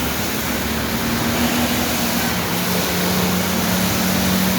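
A motor vehicle's engine running close by, its steady hum dropping a little in pitch about halfway through, over a loud, even hiss of rain and wet street noise.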